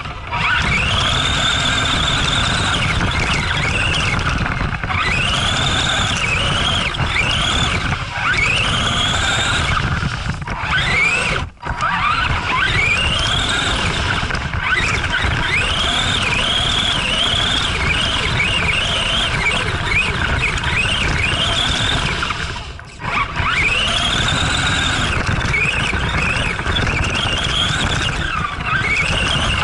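Arrma Granite 4X4 RC truck's brushed electric motor and drivetrain whining, the pitch rising and falling over and over as the throttle is blipped, heard from a camera mounted on the truck, over a rough rumble of tyres and chassis on snowy ground. The sound briefly drops away twice.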